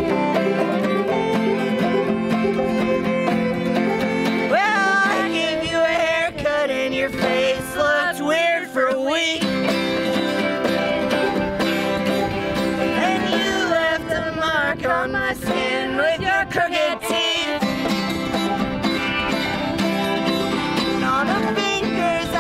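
Acoustic string band of open-back banjo, acoustic guitar and fiddle playing a bluegrass-style song. A wavering lead melody rises over the picked accompaniment from about four seconds in until past the middle, and voices come in singing near the end.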